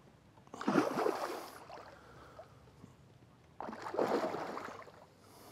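A large hooked common carp thrashing at the surface, two heavy splashes: one about half a second in and another near four seconds in.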